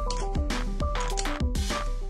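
Background music with a steady beat: a stepping melody over drum hits.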